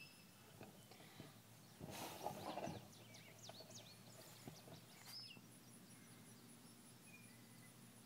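Quiet pond-side ambience: scattered bird chirps and whistles, a cluster of them between about two and four seconds in, over a faint high-pitched pulsing trill, with a brief rustle about two seconds in.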